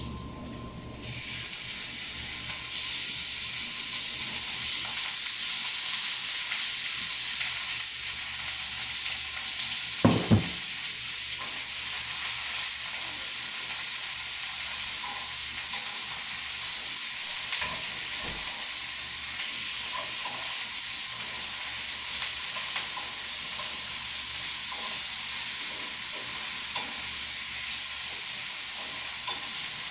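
Beef with garlic and onion sizzling in hot oil in a frying pan while being sautéed and stirred; the sizzle gets louder about a second in. Two sharp knocks come about ten seconds in.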